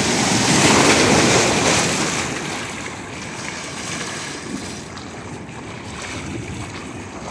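Ocean surf washing in the shallows around a wading fisherman: a loud rush of broken wave for the first two seconds, then a quieter, steady wash of water.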